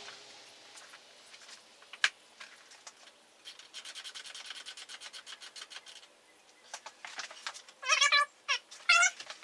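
Hand work on a bar-end mirror at the end of a motorcycle handlebar: a single click, then a fast run of light ratchet-like clicks for a couple of seconds, then a few short squeaking rubs near the end.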